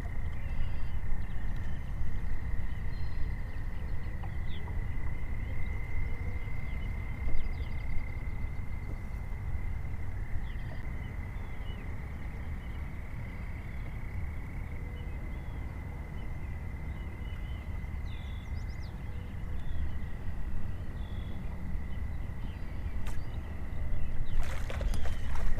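A boat idling on a lake: a steady low rumble of wind and water, with a thin high whine throughout, typical of an electric trolling motor. There are faint scattered bird chirps, and a few clicks near the end.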